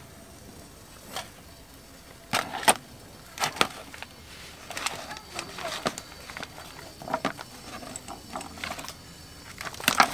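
Handling sounds as a microwaveable plastic rice tray is lifted from a steaming pot with metal tongs, its film peeled back and the rice shaken out into a bowl: irregular clicks, knocks and plastic crinkling over a steady low hiss.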